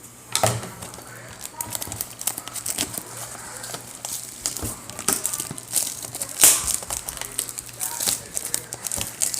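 Plastic packaging of a sealed box of trading cards crinkling and tearing in quick, irregular crackles as it is unwrapped and opened by hand.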